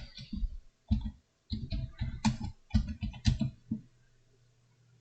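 Computer keyboard keystrokes in an irregular run, stopping about four seconds in.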